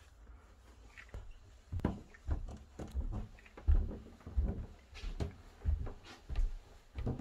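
Footsteps climbing carpeted stairs: a steady run of dull thuds, about one and a half a second, starting about two seconds in.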